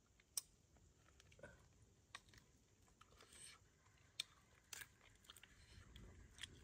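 Near quiet with about half a dozen faint, sharp clicks and crackles at irregular intervals, the clearest about half a second in.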